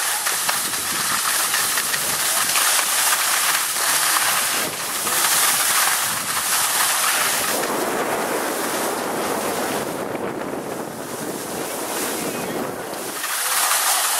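Skis sliding and scraping over packed snow, with wind rushing on the microphone: a steady noisy hiss that grows fuller and deeper for a few seconds past the middle.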